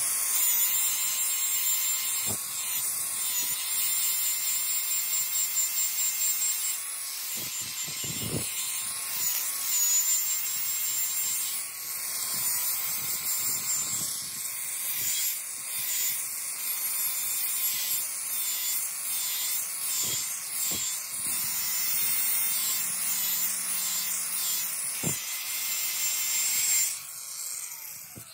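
Electric angle grinder running with an abrasive disc against a steel axe head, grinding the rust off to bright metal: a steady high whine with a hiss of grinding. Near the end it is switched off and winds down.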